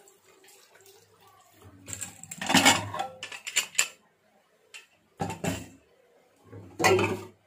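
Metal pressure cooker lid being twisted open and lifted off, after the cooker has been cooled under cold tap water: a run of metal clanks and scrapes about two seconds in, then two shorter clatters near the end. Faint running water at the start.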